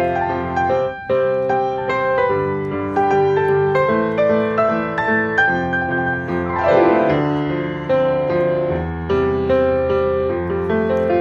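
Background piano music, a gentle melody of struck notes, with a quick downward run across the keys about six and a half seconds in.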